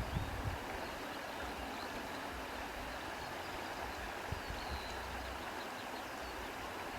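Breeze blowing through grass: a steady rustling hiss, with a few low gusts buffeting the microphone in the first half-second.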